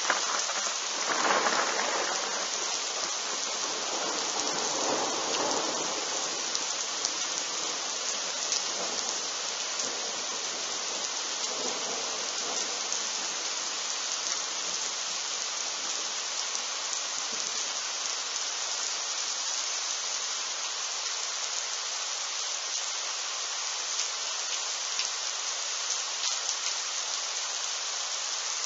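Steady rain hissing, with a thunderclap from a lightning strike about a kilometre away: loudest about a second and a half in, its rumble fading over the next ten seconds or so.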